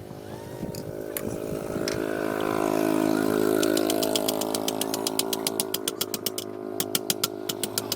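A motor-driven machine running steadily and growing louder, joined in the second half by a rapid regular series of sharp knocks, about six a second.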